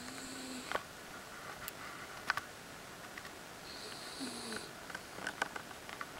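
Miniature schnauzer snoring: two drawn-out snores, each a low tone with a high whistle over it, one at the start and one about four seconds in, with faint clicks in between.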